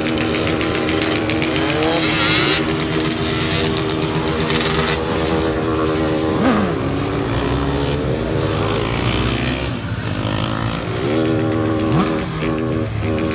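Several motorcycle engines running and revving, their pitch rising and falling again and again, with short, choppy blips of the throttle near the end.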